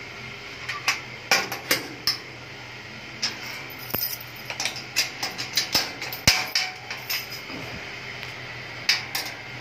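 Irregular metallic clinks, knocks and rattles from a stainless-steel animal cage, its bars and door moving against the frame, with one sharper knock about six seconds in.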